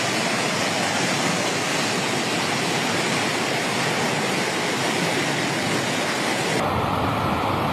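Fast-flowing floodwater rushing with a steady, even roar of noise. Near the end it turns abruptly duller, losing its hiss and gaining a low rumble.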